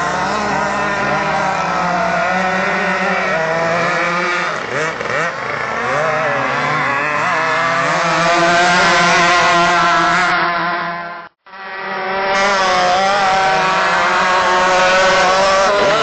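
Several radio-controlled racing powerboats' small two-stroke petrol engines running at high revs, their overlapping pitches wavering as the boats race past. The sound drops out for a moment about eleven seconds in, then carries on.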